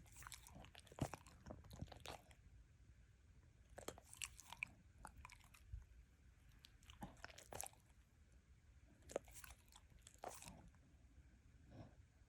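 A beagle licking her lips, making faint wet smacking and clicking mouth sounds in four short bouts.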